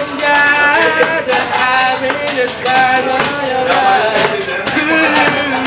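Music with a steady beat and a shifting melody.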